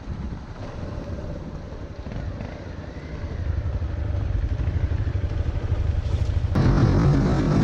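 Motorcycle engine running while riding, under a low rumble of wind buffeting the microphone, growing louder over the first few seconds. About six and a half seconds in, an abrupt cut to a louder, fuller sound.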